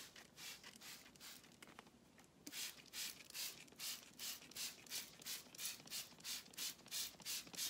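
Plastic trigger spray bottle squirting over and over in quick short hisses, about three a second, fainter at first and stronger from about two and a half seconds in.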